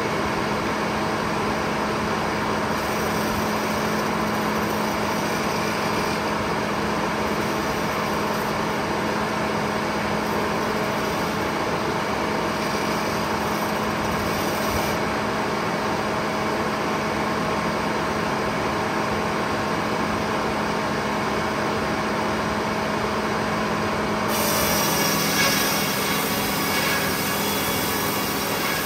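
Lane No. 1 circular sawmill running steadily under power, with a steady hum. About 24 seconds in the sound turns brighter and harsher, with a brief louder moment a second later.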